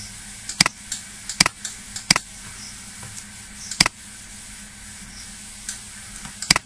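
Computer mouse clicking: about five sharp, separate clicks at irregular intervals, over a faint steady electrical hum.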